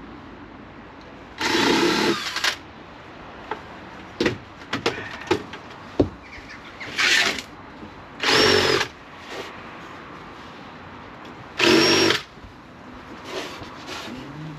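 Power drill running in four short bursts, with sharp clicks and knocks of handling between them.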